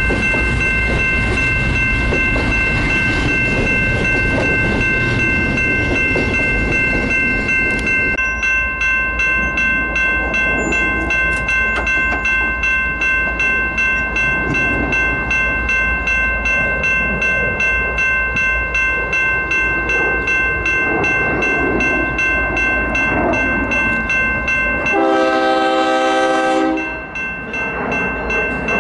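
Double-stack intermodal train cars rolling past on the rails, with a steady high ringing over the rumble. After the train's end passes, about eight seconds in, the rumble drops. Near the end an approaching BNSF freight locomotive sounds one long multi-chime air horn blast.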